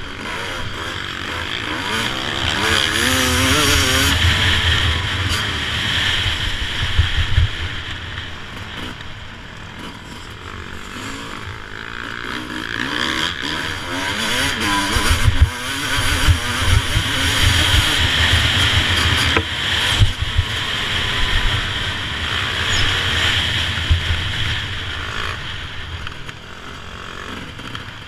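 Suzuki RM250 two-stroke motocross engine heard onboard, revving up and backing off repeatedly as the bike rides the track, with a heavy rumble of wind and bumps on the microphone. It eases off near the end.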